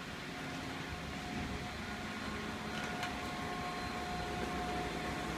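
Steady mechanical hum with a faint high whine, and a couple of faint clicks about three seconds in.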